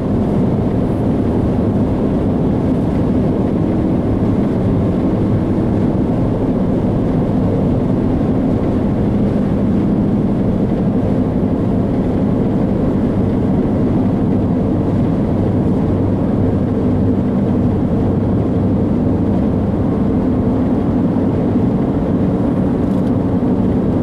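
A car being driven at steady speed, with a continuous low rumble of road and engine noise heard from inside the car.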